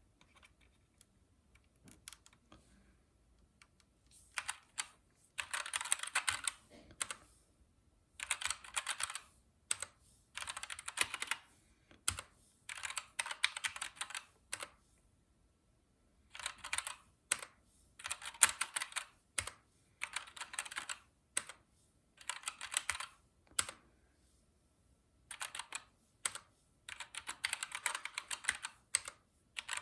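Keys of a Keychron K2 mechanical keyboard being typed on in quick runs of clicks, each run a second or two long with short pauses between; only a few faint clicks in the first four seconds.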